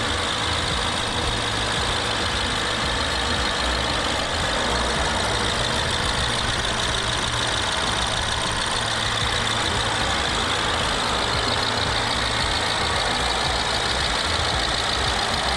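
BMW N63B44A 4.4-litre twin-turbo V8 running steadily at idle, heard close up in the open engine bay. It runs evenly, which the seller rates as excellent.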